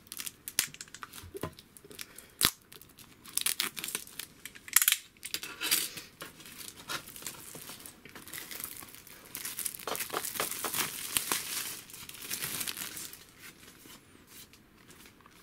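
Clear plastic shrink wrap being torn and peeled off a boxed disc set by hand: irregular crinkling and crackling with sharp snaps, and a longer stretch of steady crinkling about halfway through.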